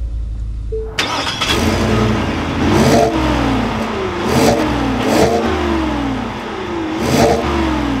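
Ford F-150's 5.0-litre V8 revved four times from idle through its exhaust, each rev climbing and then falling back. Before that, for about the first second, the just-started engine idles as heard inside the cab, with a short chime.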